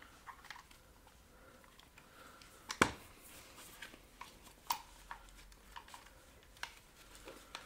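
Handling noise from a KGP-9 submachine gun: a few small metallic clicks and one sharp knock about three seconds in as the gun is put down on the cloth-covered table.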